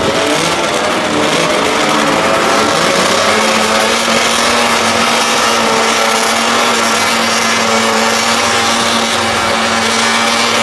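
A pack of racing snowmobiles' engines running together on the start line, pitch wavering with throttle blips for the first few seconds, then held at a steady high revving pitch while the sleds wait for the start.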